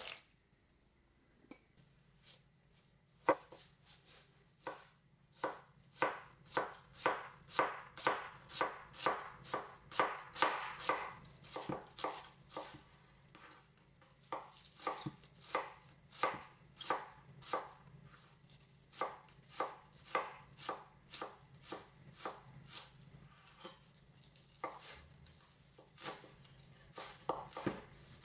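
Chef's knife chopping green onions on a bamboo cutting board: steady knife strokes knocking against the wood, about two a second, with a brief pause about halfway through.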